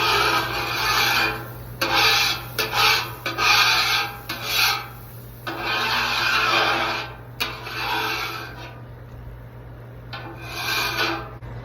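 Metal spatula or scraper scraping the steel top of a Blackstone griddle in about eight separate rasping strokes, clearing off cooked-on food residue before the surface is oiled. A steady low hum runs underneath.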